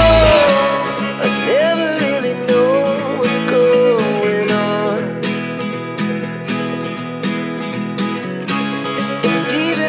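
Background music: a wavering melody over a plucked, guitar-like accompaniment with a steady beat.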